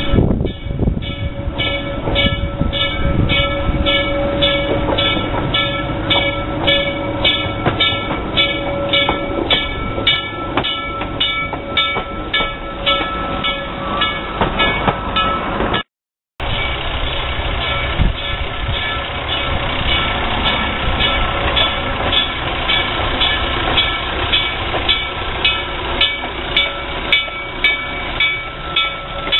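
Self-propelled rail motor car (Lancaster, Oxford & Southern Car No. 10, an 1885 coach rebuilt as a motor car) moving along the track, with a bell ringing steadily about twice a second. The sound cuts out for a moment about halfway through, then the car and the bell carry on.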